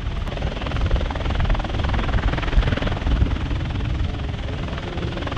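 MV-22 Osprey tiltrotor running on the ground, its twin proprotors turning in helicopter mode with a rapid, even rotor beat over the engines' noise.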